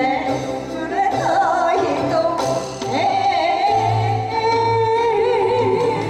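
A woman singing into a microphone over instrumental accompaniment, holding long notes with vibrato.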